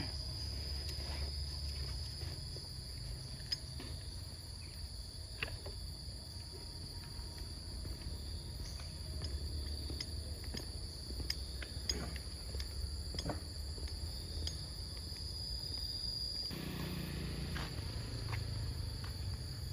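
Steady high-pitched insect chirring that cuts off abruptly near the end, over a low rumble, with a few scattered faint clicks.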